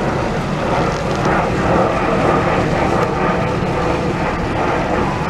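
Steady engine drone and rushing noise aboard a moving river tour boat.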